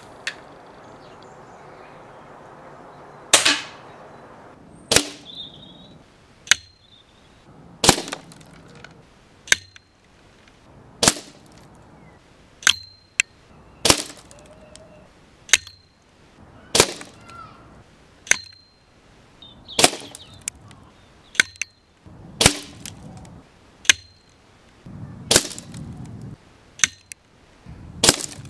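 BSA Mark IV Super Meteor spring-piston air rifle in .22 firing pellets into a CD in its case: a long series of sharp cracks, about one every second and a half.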